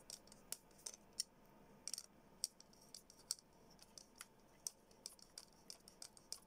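Small magnetic screwdriver turning tiny screws into a Raspberry Pi Zero hotspot case: faint, irregular little clicks and ticks, several a second.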